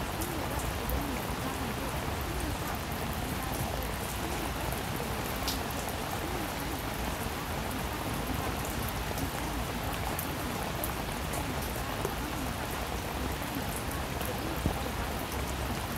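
Steady rain sound used as the masking track of a subliminal recording, with a faint wavering voice buried beneath it.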